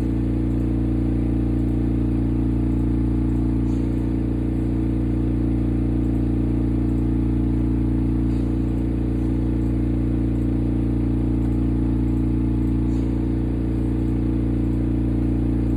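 A steady machine hum, several low tones held without change, with a faint hiss above.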